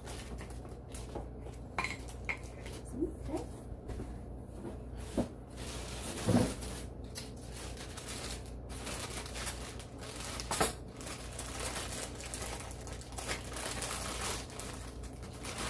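Kitchenware being handled and unpacked: scattered light clinks and knocks, with louder knocks about six and ten and a half seconds in, over a low steady hum.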